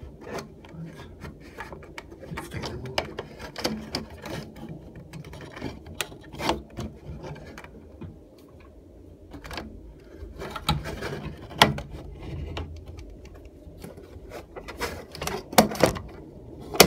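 Mitsubishi centrifugal bathroom exhaust fan running with a low hum, overlaid by irregular clicks and rubbing knocks close to the grille.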